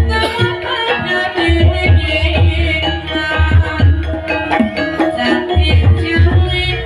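Javanese gamelan music: ringing metallophone tones held over a steady pattern of kendang hand-drum strokes.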